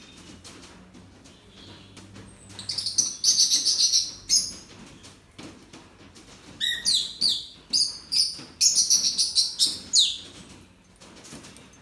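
Birds chirping in two bouts of rapid, high-pitched calls, the first about two and a half seconds in and the second from about six and a half to ten seconds; many of the calls drop in pitch.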